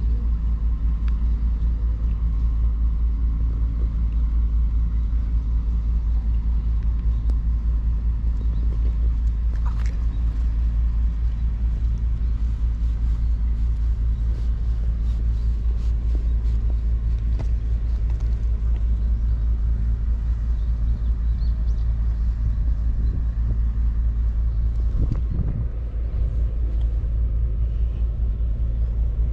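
A steady low rumble with a low hum running through it, like an engine idling nearby, and a few faint clicks on top.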